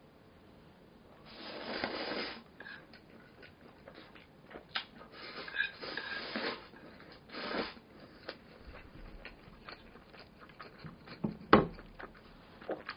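A person eating Buldak meat-spaghetti instant noodles with meatballs: a few longer noisy slurps of noodles between bites and chewing, with scattered small clicks and one sharper click, likely utensils, about eleven and a half seconds in.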